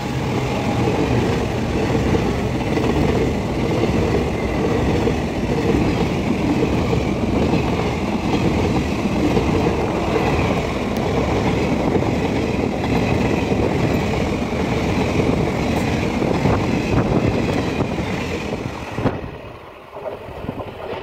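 Passenger train's coaches running past close by on the adjacent track: a steady loud rumble and clatter of wheels on rails, which drops away about two seconds before the end as the last coach goes by.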